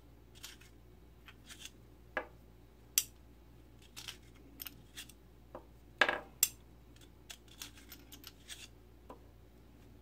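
Small metallic clicks and taps from unloading a Cimarron 1873 single-action revolver replica: the ejector rod pushing cartridges out of the cylinder one at a time, the cylinder being turned, and the cartridges being set down on the table. The sounds come singly and irregularly, with the sharpest tap about six seconds in.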